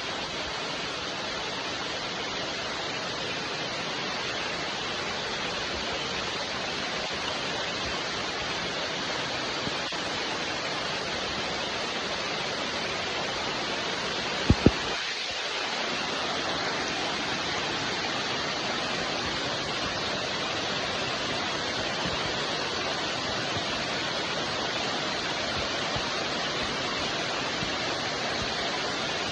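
Steady rain falling, an even hiss without let-up. About halfway through, two short low thumps come in quick succession.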